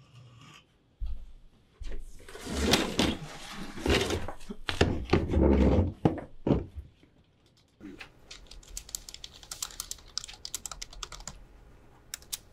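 Fast typing on a computer keyboard, a quick run of key clicks in the second half. Before it come a few seconds of louder thumps and rustling handling noise.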